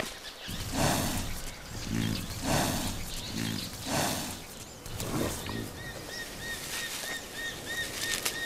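Cape buffalo chewing grass at close range: a series of low, coarse chews, irregularly spaced about twice a second, for about five seconds. After that a bird calls in short repeated arching notes, about three a second.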